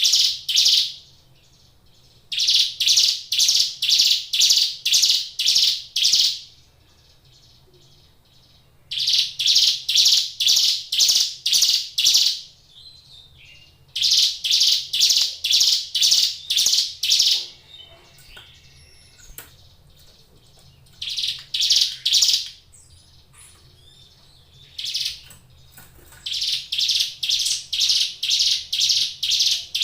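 Ciblek gunung, a prinia, singing loud phrases of sharp, evenly repeated chirps, each phrase lasting a few seconds, with short pauses between them.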